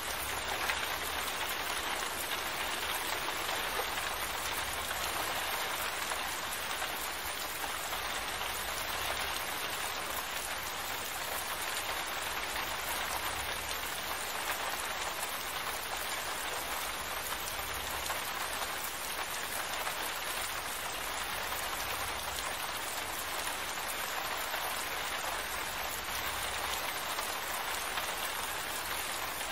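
Steady rain falling, an even hiss of drops that keeps a constant level throughout.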